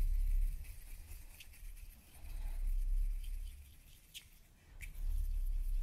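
Hands rolling a small ball of polymer clay between the palms: a soft, deep rumbling that swells three times, with a few faint ticks in between.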